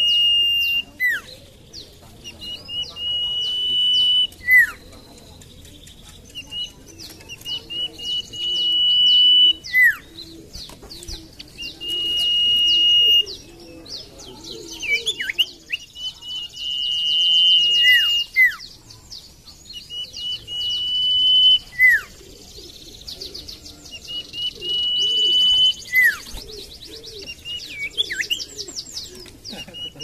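Common iora singing: a long, level, high whistle ends in a quick downward slur, and the phrase repeats about every four seconds. Quick chirps and high twittering fill the gaps between phrases.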